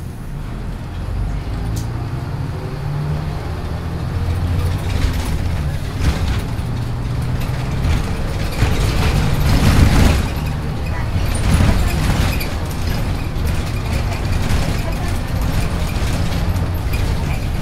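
Interior running sound of a 1996 Hino Blue Ribbon city bus (KC-HU2MPCA): the diesel engine hums low as the bus drives, its pitch shifting a few times, with the body and fittings rattling, loudest about ten seconds in.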